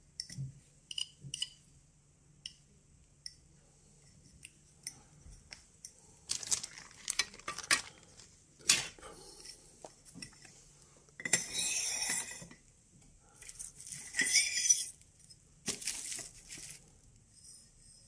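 Metal-cased Geiger-Müller tubes and alligator-clip leads clinking and rattling as they are handled and swapped, in a string of clattering bursts. A few sharp ticks come first.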